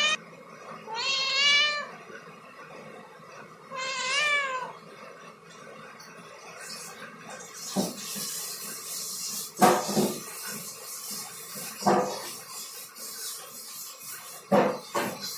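A young domestic cat meowing twice, short calls that rise and fall in pitch, about a second in and again about four seconds in. After that, a rustling hiss with several sharp knocks.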